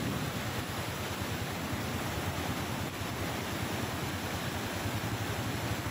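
Flash-flood surge of muddy water rushing down a stepped stream bed, a steady, even rushing noise.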